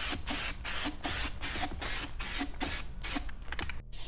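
Aerosol spray-paint can hissing in short sprays, about two a second, as it paints a metal plumbing-vent pipe black. The spraying pauses briefly near the end, then starts again.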